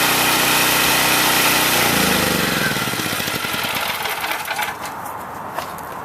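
Chicago Electric 3500-watt portable generator's 7 hp OHV engine running steadily, then shutting down about two seconds in: its pitch falls as it coasts to a stop. A light click or two follows near the end.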